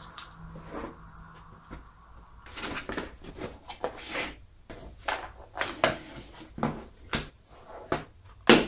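Cardboard product box being opened by hand: lid flaps and the inner tray are handled in a run of short knocks, scrapes and rustles, busy from about two seconds in. A plastic storage case is lifted out, with a sharp knock just before the end, the loudest sound.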